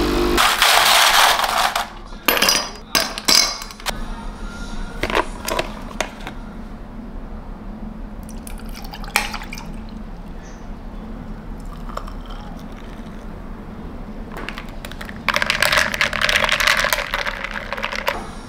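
Making iced coffee by hand: a capsule espresso machine's pump cuts off and gives a brief hissing sputter, then scattered clinks and taps of glass and ice, milk poured from a carton over ice, and a longer rattle of ice being stirred in a tall glass with a glass straw near the end.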